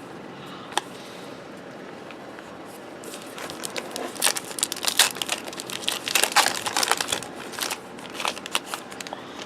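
Trading card pack wrapper crinkling and tearing as it is opened, a dense run of crackles starting about three seconds in, after a single click near the start.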